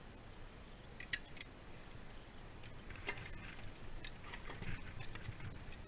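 Clicks and rustling of a small hand tool and plastic bird netting being worked by hand against a tensioned wire. Two sharp clicks come about a second in, then a busier run of small clicks and rustles from about three seconds on.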